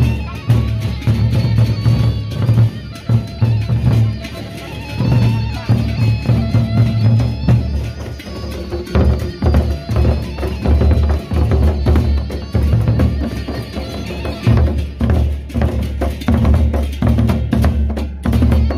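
Gendang beleq ensemble playing: large Sasak double-headed barrel drums beaten with sticks and hands in a dense, driving rhythm, with a higher ringing part over the deep drum strokes.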